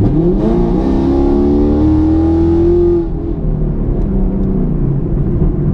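2018 Camaro SS's 6.2 L V8 with Texas Speed 1-7/8 inch long-tube headers and MBRP axle-back exhaust, heard from inside the cabin under hard acceleration. The revs climb steeply, drop once as the automatic upshifts just under a second in, then climb more slowly until the driver lifts off about three seconds in. After that the engine runs lower and quieter.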